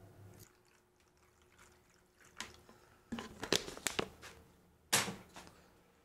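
A knife cutting a tablespoon of butter on a plastic cutting board, heard as a scattering of light clicks and knocks of knife and dish from about two seconds in, the sharpest near five seconds.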